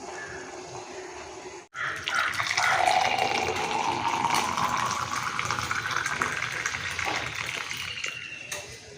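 Herbal decoction being poured in a steady, splashing stream into a vessel, its pitch slowly rising as the vessel fills. The pouring starts suddenly about two seconds in, after a brief dropout, and tails off near the end.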